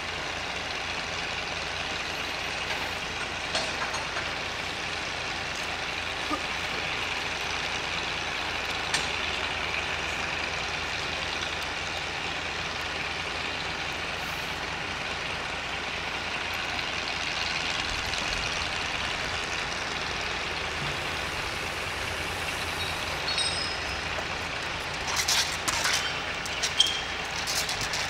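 Steam donkey engine working with a steady hiss of steam, then a cluster of sharp knocks and short high squeals near the end as it sends up a large plume of steam.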